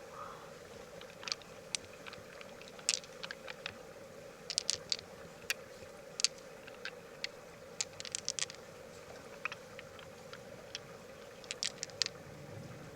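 Irregular sharp clicks and taps of hard shell being handled and worked, a dozen or more spread unevenly, over a faint steady hum.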